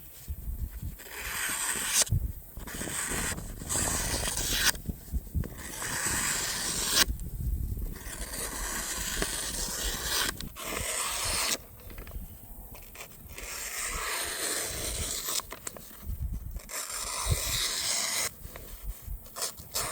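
A hand-forged Go-Mai Damascus hunting knife blade scraping and slicing through material in repeated strokes, each a second or two long with short breaks between, as its sharpened edge is tested.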